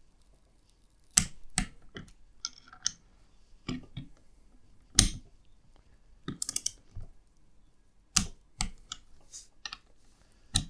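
Metal tools and bike parts being handled while bolts are fitted and tightened: scattered sharp clicks and knocks, the loudest about halfway through, with a quick run of light clicks just after it.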